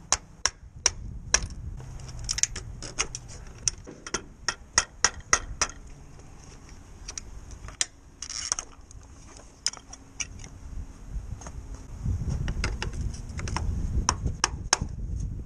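Claw hammer striking the end of a screwdriver held against a plastic rope clutch on a sailboat mast: dozens of sharp metallic taps in irregular runs, with a short pause midway. He is chipping the clutch's plastic body away to make room to get at a stripped mounting screw.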